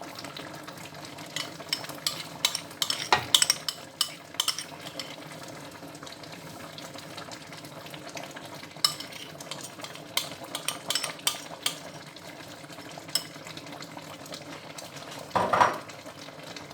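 Metal spoon clinking and tapping against a cooking pot in bursts as lumps of blended egusi paste are spooned into simmering soup, with a louder scrape near the end. A steady low simmer runs underneath.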